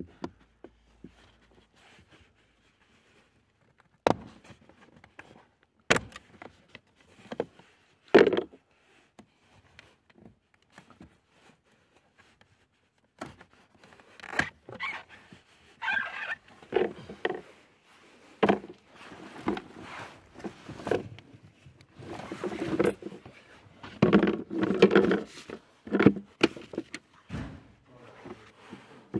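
Hard plastic clicks and knocks as the cabin-filter cover of a VW Golf 7 is handled, then a long stretch of rustling and scraping as the pleated cabin air filter is worked into its plastic housing.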